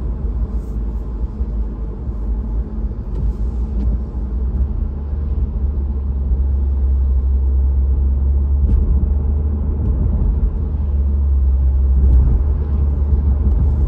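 Road noise heard inside a moving car's cabin on a wet road: a steady low rumble of engine and tyres that grows somewhat louder from about four seconds in.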